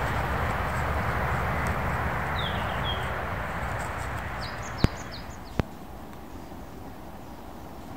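Outdoor woodland ambience: a steady rushing noise that slowly fades, with a few short high bird chirps, two falling ones and then a quick run of several, and two sharp clicks less than a second apart about five seconds in.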